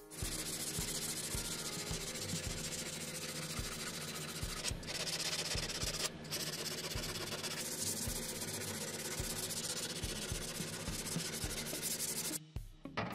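Hand-sanding a rusty steel sword blade: an abrasive rubbed back and forth along the metal by hand, a steady scratchy rubbing to strip the rust. It breaks off briefly twice and stops suddenly near the end.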